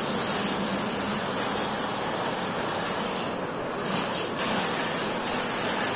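Water pouring steadily into a bucket, a continuous splashing hiss that dips briefly about three and a half seconds in.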